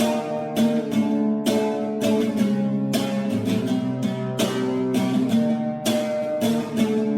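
Acoustic guitar strumming chords at an even pace in an instrumental passage, with no singing.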